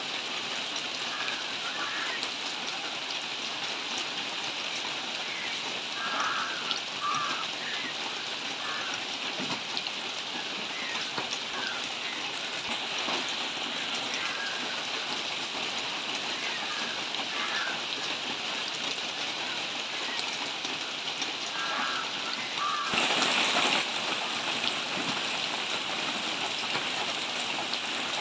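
Steady rainfall, an even hiss with no let-up. A few short, faint calls sound through it, and about five seconds from the end the hiss turns louder and brighter for about a second.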